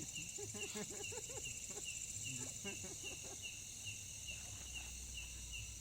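Forest insects: a steady high buzz with a regular chirp repeating evenly over it, and faint distant voices in the first half.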